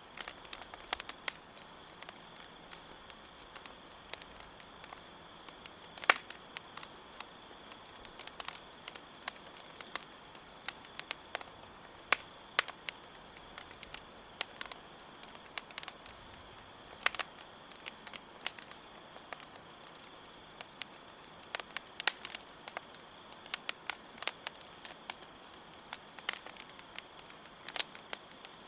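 Campfire crackling, with irregular sharp pops and snaps of burning wood, a few of them much louder. Behind it a steady high trill of crickets.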